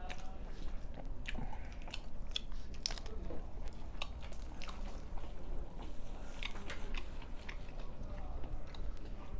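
Close-up mouth sounds of a man eating egg-coated paratha: chewing with irregular wet smacks and clicks.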